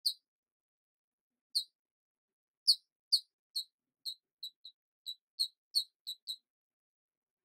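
A series of short, high-pitched squeaks: a few spaced out at first, then a quick run of about ten, several a second, from about three to six seconds in.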